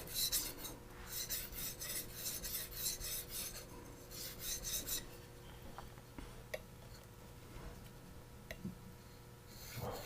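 A hand-forged petty knife being stroked back and forth on a wet Japanese natural whetstone with slurry: a quick run of gritty scraping strokes with a brief pause about a second in, stopping about five seconds in, followed by a few faint clicks.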